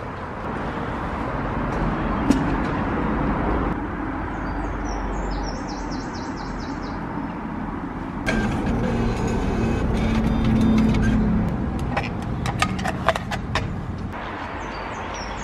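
Road traffic noise with vehicles passing. About halfway through it grows louder with a low hum, and near the end a run of sharp clicks follows.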